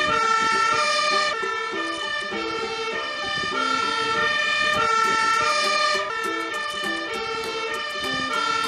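Fire engine's two-tone siren, switching steadily back and forth between a high and a low note.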